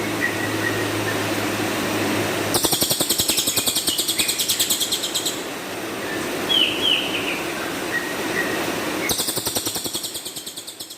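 Song of a cililin (pin-striped tit-babbler): a few short down-slurred notes, then a long, harsh, rapid rattling trill of about nine pulses a second. The phrase comes round twice, and the sound fades near the end.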